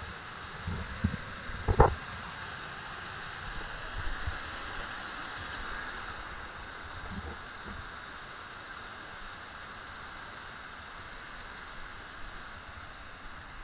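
Steady hiss of white water pouring over small travertine cascades and waterfalls. A few short low thumps are heard about one to two seconds in, the loudest near two seconds, with fainter ones around four and seven seconds.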